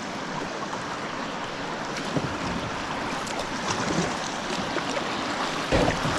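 River water rushing over a shoal around a kayak: a steady hiss of running water, with a louder low rumble coming in near the end.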